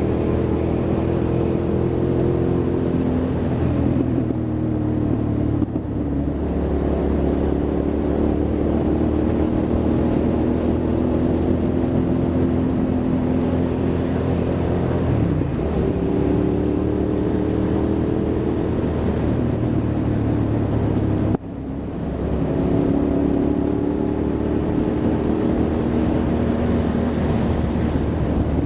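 Hyosung GT650R's V-twin engine running on the road, its pitch shifting as it accelerates and eases off, with gear changes around 4, 15 and 21 seconds in; the last is a brief sharp drop in level.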